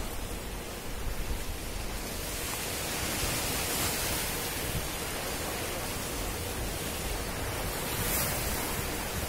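Sea waves breaking and washing over boulders on a rocky shore: a steady rush of surf that swells a couple of seconds in and again near the end.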